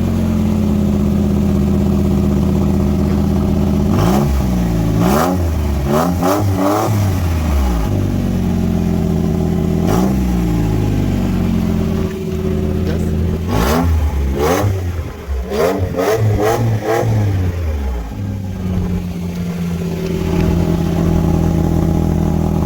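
Lexus RX300's 3.0 L V6 idling with its downstream oxygen sensor removed, revved up and back down in several short blips between stretches of idle. The revs blow dust and rust out through the open sensor hole in the exhaust pipe.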